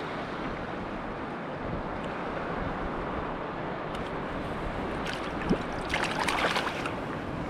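Steady wind and surf noise on an open shore. About six seconds in comes a brief splash of water as the released sea bass goes back into the water.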